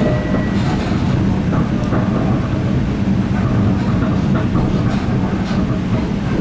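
Steady rumble of a moving Long Island Rail Road electric commuter train, heard from inside the passenger car, with scattered faint clicks from the wheels on the track.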